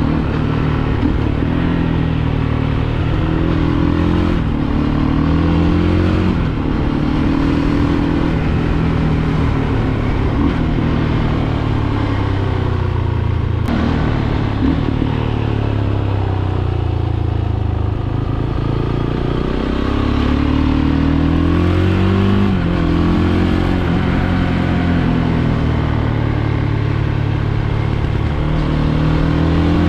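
Fantic Caballero 500's single-cylinder four-stroke engine heard on board while riding, its pitch climbing and dropping several times as the rider works the throttle and gears. The revs sink lowest a little past halfway, then climb again.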